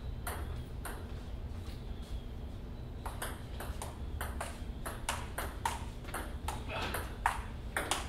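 Table tennis ball: two single clicks in the first second, then from about three seconds in a rally, the celluloid ball clicking off paddles and table in quick succession, several times a second. A steady low room hum sits underneath.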